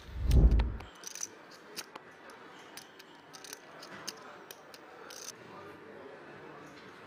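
A short, deep whoosh-and-boom transition sound effect, the loudest sound, in the first second. After it come scattered faint clicks of clay poker chips being handled at the table.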